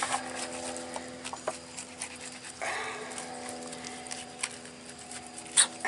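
Fillet knife drawn between fish skin and flesh to skin a fillet, scraping softly on the cutting board, with a sharp knock near the end, over a steady hum.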